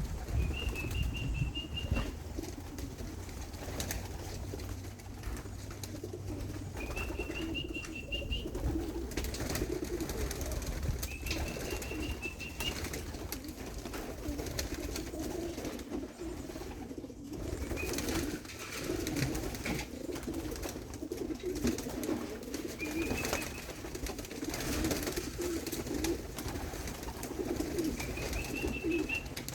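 Racing pigeons cooing steadily in the loft, with occasional wing flaps and clicks. A short, high, rising chirp recurs every five seconds or so.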